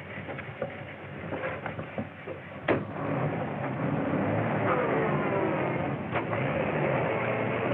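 A sharp click about two and a half seconds in, then a vintage open touring car's engine running and pulling away, over old film-soundtrack hiss. The engine sound cuts off suddenly near the end.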